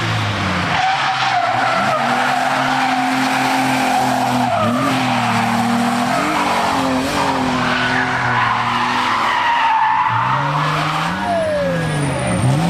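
Race car engines revving hard on a hill-climb course, the note dropping and climbing again through gear changes. Near the end one car's engine note rises and then falls as it passes.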